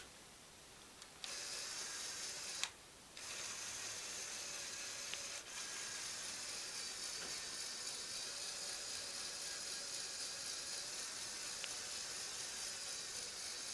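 Lego Technic Power Functions electric motor running steadily, turning the gear train that swings the crane around. It starts about a second in, stops briefly with a click near three seconds, then runs on evenly.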